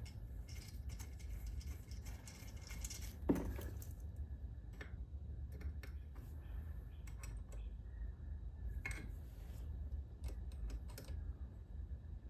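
Scattered light metallic clicks and clinks of a case splitter tool and its bolts being handled and fitted to a motorcycle engine's crankcases, with a steady low hum underneath.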